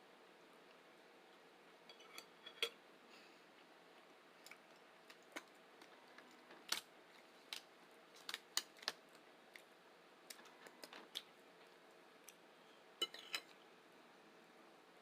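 Scattered short clicks and taps, about a dozen spread irregularly, the small sounds of handling and eating food: utensil and dish contact and mouth clicks.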